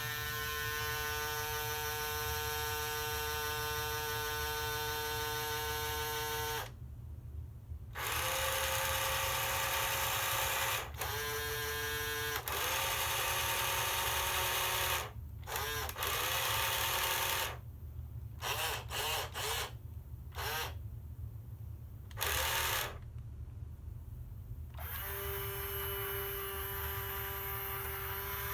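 Small electric motors and gearing of a 1988 New Bright remote-control fire truck whining in stop-start runs as it is worked from its corded remote, with the ladder boom most likely being moved. Some runs last several seconds and others are brief blips, and the pitch shifts from run to run, over a steady low hum.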